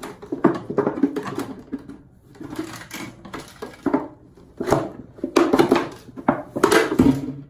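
Hands handling a cut plastic soda bottle at close range: irregular crinkles, clicks and rustles in uneven bursts, the loudest near the end.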